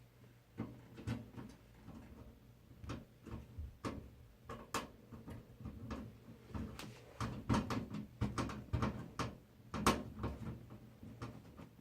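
Irregular small clicks and knocks of a screwdriver and screws working against a computer case while a motherboard is screwed in.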